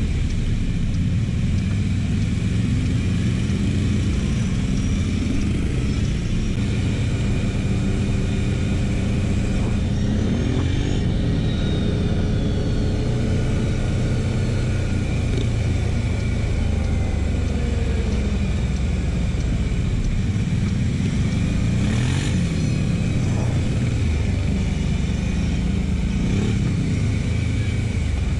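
TGB Blade 1000 quad's V-twin engine running under way at low speed, its note rising and falling a few times as the throttle is opened and closed.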